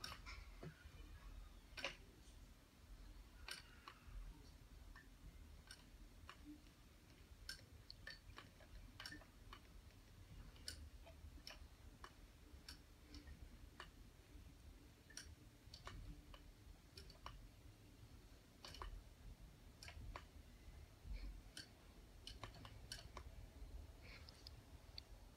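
Faint, irregular clicking from an Erlbacher Speedster circular sock machine being cranked slowly, its latch needles working as the cam passes.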